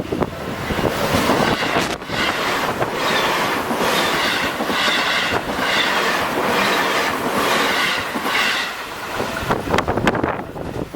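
Seibu Shinjuku Line electric commuter train passing close by over a level crossing that spans four tracks and the points of a station's middle track. A steady roar of wheels on rail carries a rhythmic pulse about one and a half times a second, easing near the end with a few last clacks.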